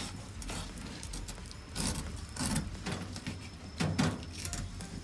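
Kitchen knife cutting and scraping along an opened conger eel on a wooden cutting board: a few short scrapes and knocks, the loudest about four seconds in.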